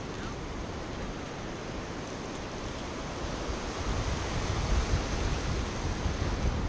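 Ocean surf washing up the beach in a steady hiss, with a low wind rumble on the microphone growing louder about four seconds in.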